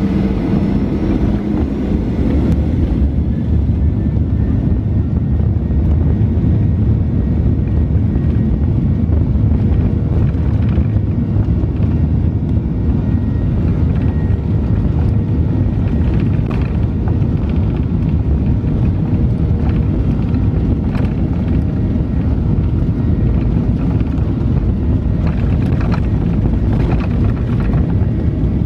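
Inside the cabin of a Boeing 737-800 on its takeoff roll: the CFM56 jet engines running at takeoff thrust and the wheels rumbling on the runway. The noise is loud, steady and deep, with short light rattles from about ten seconds in.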